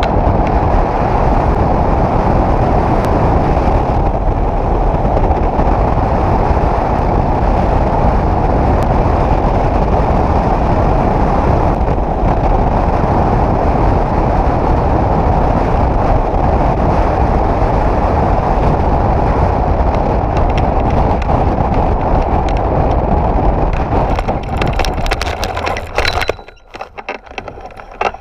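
Loud, steady wind roar buffeting a hang glider's keel-mounted camera microphone in flight. Near the end it breaks into a quick run of knocks and clatter as the glider touches down on its skids, and the wind noise drops away.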